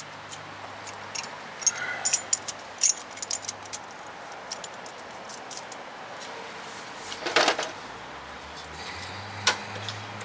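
Light metallic clicks and clinks as a new brake line and its fittings are handled and worked into position. There is a louder clatter about seven seconds in and a single click near the end.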